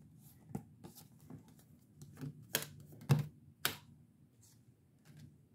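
Tarot cards being handled: a handful of soft, short clicks and taps, the clearest three about half a second apart near the middle.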